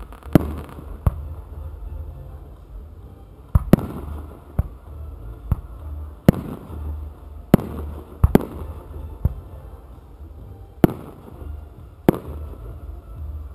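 Aerial firework shells launching from mortar tubes and bursting overhead: about a dozen sharp bangs at irregular intervals, some in quick pairs, over a low rumble.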